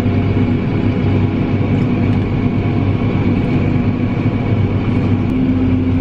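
Tractor engine running steadily under load, heard from inside the cab as a constant low drone with a steady hum.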